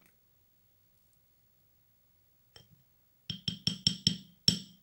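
A plastic spoon clinking against the side of a small glass bowl of thick paste as it is stirred: one faint tap, then six quick ringing clinks over about a second and a half.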